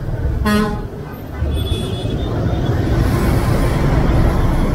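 A short vehicle horn toot about half a second in, over the steady low rumble of a motorcycle engine and road noise while riding in traffic.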